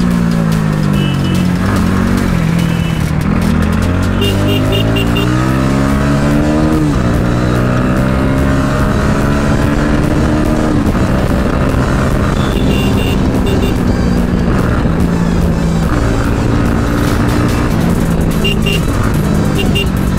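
Bajaj Pulsar NS200's single-cylinder engine pulling through the gears in traffic. The pitch climbs and then drops sharply at each gear change, several times. Short high beeps come in now and then.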